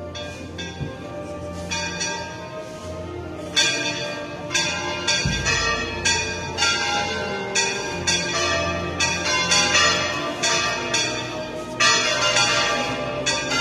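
Church bells ringing a rapid, irregular peal, the strikes growing denser and louder about three and a half seconds in.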